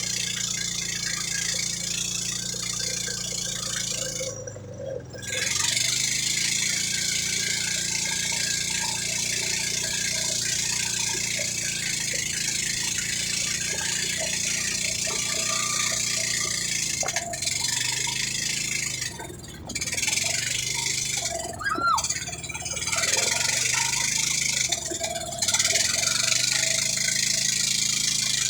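Boat engine running steadily under a loud rush of wind and water, broken by a few short gaps.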